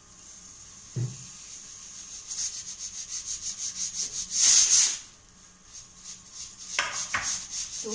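Pressure cooker on the stove letting off steam in rapid, rhythmic hissing puffs, with one louder burst of hiss about halfway through. A knock about a second in, and two more near the end.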